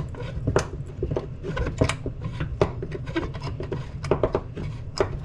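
Turbosmart blow-off valve being slowly unscrewed and worked apart while held in a C-clamp between wood blocks: irregular clicks, knocks and rubbing of metal parts, over a steady low hum.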